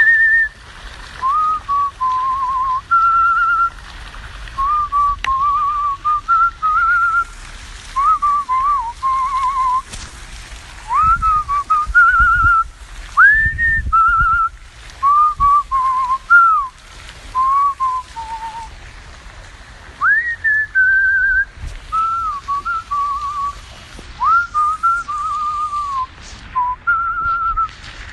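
A man whistling a tune through pursed lips, in short phrases with sliding notes and some wavering held notes.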